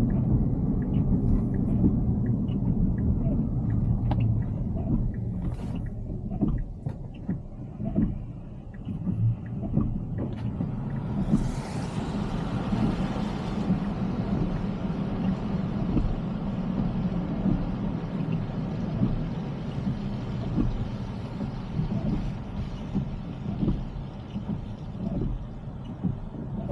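Road and tyre noise inside a Tesla Cybertruck cabin while it drives on a wet road, a steady low rumble with faint scattered clicks. A louder hiss rises about eleven seconds in and fades two seconds later.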